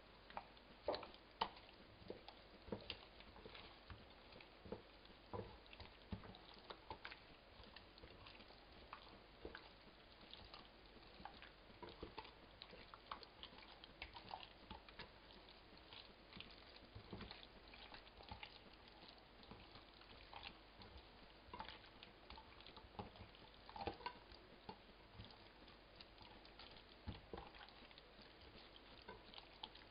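Faint, irregular wet squelches and soft taps of a hand kneading raw chicken pieces with a spice rub in a glass bowl.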